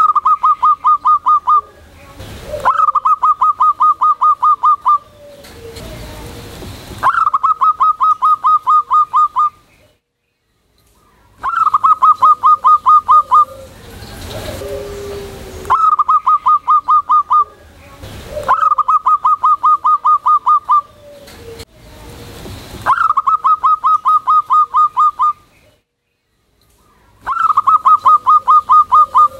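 Caged zebra dove (perkutut) singing its loud song in eight bouts, each a quick run of evenly spaced staccato cooing notes, about five or six a second for one to two seconds, with short pauses between bouts.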